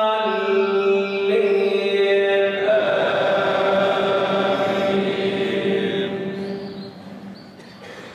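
A man's melodic Quran recitation by the imam leading the prayer, sung through the mosque's microphone. One long held note carries most of the phrase, then fades out near the end.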